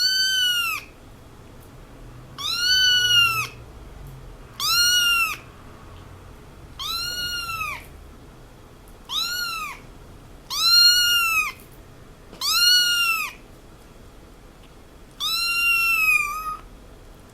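Kitten meowing, eight high-pitched meows about two seconds apart, each rising then falling in pitch; the last is longer and wavers at its end.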